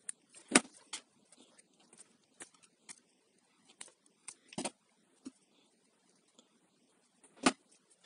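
Side-cutting pliers snipping and scoring the outer sheath of a hair dryer's two-core power cord to open it: a string of sharp separate clicks and snips, the loudest about half a second in. Near the end there is one more sharp knock as the pliers are laid down on the bench.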